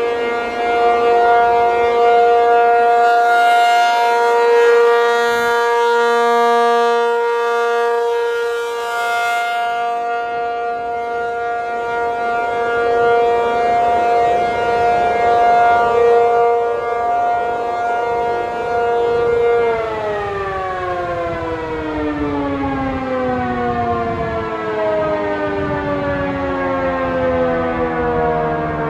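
Rotating outdoor warning siren sounding a steady chord-like tone with slow swells in loudness. About twenty seconds in it winds down, its pitch falling steadily.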